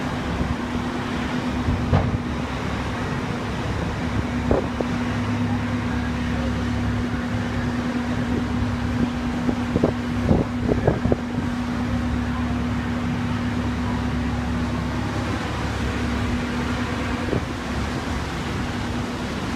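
Fire truck engine running steadily at the scene, a constant drone with a steady low hum. A few short knocks come a couple of seconds in and again in a cluster around the middle.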